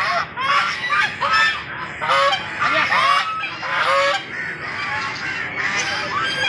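Domestic geese honking: a flock giving many short, rising-then-falling calls that overlap one another.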